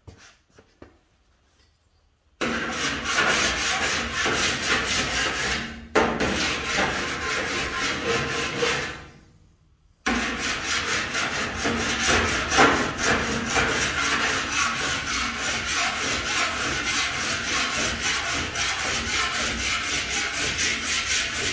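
Vixen body file rasping across the bare sheet steel of a 1936 Chevy truck fender, stroke after stroke, laying a scratch pattern that shows up the remaining low spots in the dent repair. It starts about two and a half seconds in and pauses briefly a little before halfway.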